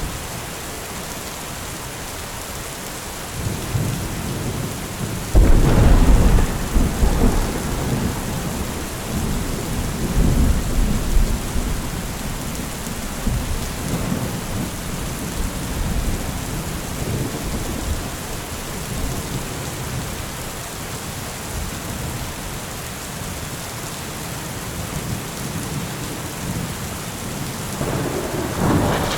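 Steady rain with thunder: a rumble builds about three seconds in, breaks into a loud thunderclap a couple of seconds later and rolls on for about ten seconds before fading, and another rumble builds near the end.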